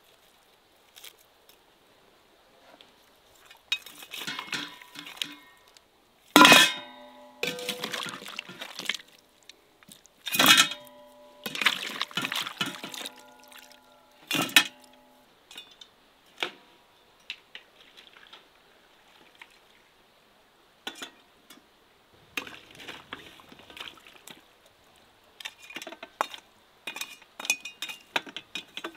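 Perforated metal skimmer scraping and knocking against a metal cauldron and enamel pails as pieces of cooked lamb in fat are scooped out. A few sharp clanks stand out, the loudest two leaving the metal ringing for several seconds, among softer scrapes and clinks.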